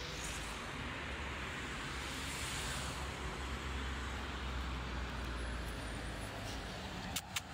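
Steady road traffic noise with a low rumble, and two short clicks near the end.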